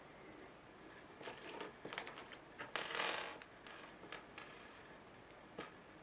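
Small metal binding-post parts (nuts, washer, lug and screw) with plastic insulators being set down from a hand onto a tabletop: a run of light clicks and clinks, loudest about halfway through, and a single click near the end.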